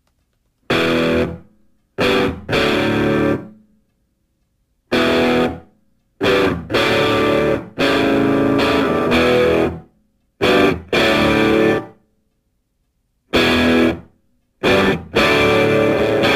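Background music of guitar chords with some distortion, coming in short stop-start phrases with dead silence between them.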